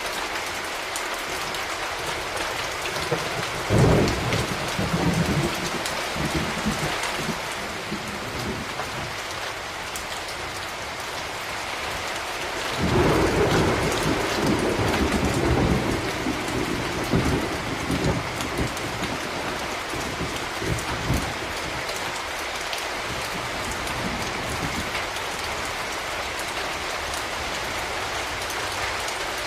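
Steady rain falling, an even hiss, with two rolls of thunder: a sharp one about four seconds in and a longer one about thirteen seconds in that rumbles on for several seconds.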